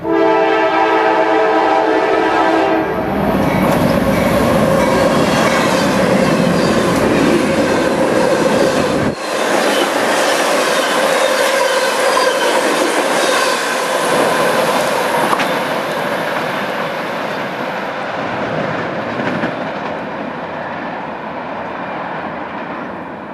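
A Norfolk Southern diesel locomotive horn sounds a steady chord for about three seconds. It is followed by a string of GE Dash 9 and EMD SD60 diesel locomotives running light past close by, with engines running and wheels clattering over the rail joints. The noise eases off toward the end.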